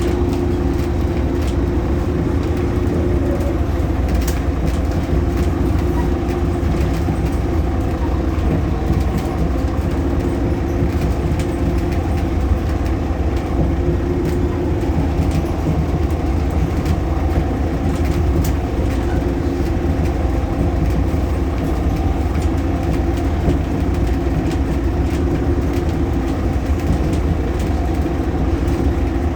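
Solaris Urbino 18 bus's DAF Paccar PR265 diesel engine running at a steady speed, with the loud belt noise from the engine and a few light rattling clicks.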